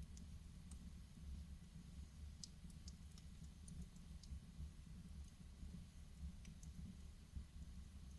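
Wood fire crackling in a fireplace: faint, scattered sharp pops and snaps, thickest around the middle, over a soft low rumble of the burning fire.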